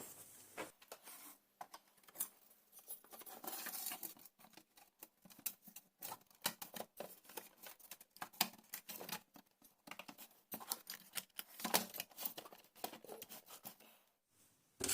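Faint, irregular small clicks, scrapes and rustles of hands working on a battery charger, handling its parts and tools as it is closed up.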